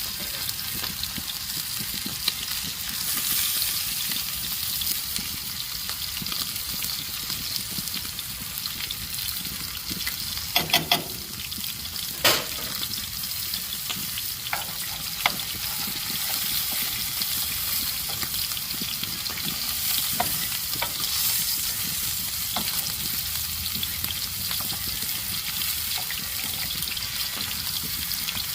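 Food sizzling steadily in a hot pan over a bonfire, with a few sharp clicks and brief clinks near the middle.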